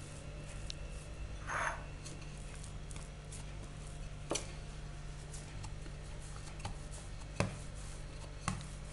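Wooden rolling pin rolling out dough on a stone worktop: soft rubbing with a few sharp knocks as the pin and hands meet the counter, over a faint steady low hum.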